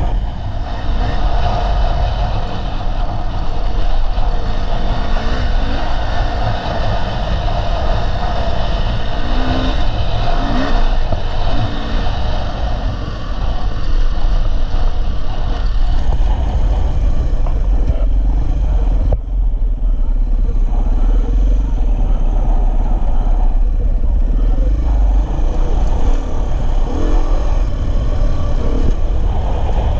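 Dirt bike engine running while riding, over a strong, steady low rumble.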